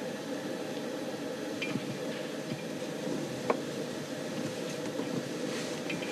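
A steady low hiss and hum with a few faint clicks and one sharper tap about three and a half seconds in.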